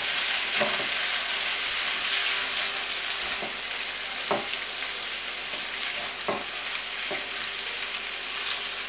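Callaloo and saltfish sizzling in a frying pan while a silicone spatula stirs it: a steady sizzle, broken by a few light knocks and scrapes of the spatula against the pan.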